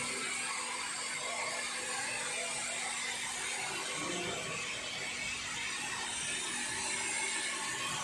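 Pump motor of a reverse-osmosis water-treatment plant running steadily: a constant hum with an even hiss over it.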